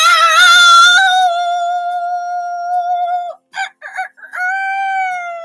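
A lone singing voice wailing long high notes: one note held for about three seconds, a few short yelps, then a second long note that slides downward.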